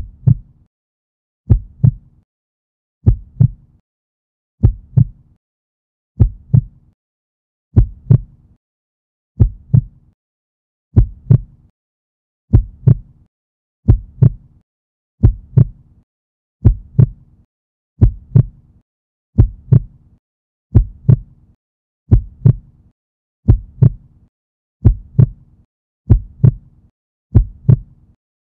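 Heartbeat sound effect: paired lub-dub thumps repeating about every second and a half, slowly quickening to about every 1.2 s, with silence between beats.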